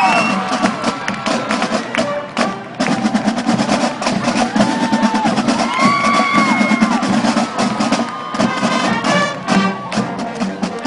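High school marching band playing, with drum-line percussion striking in a fast rhythm and short notes that bend up and down above it, and a crowd cheering.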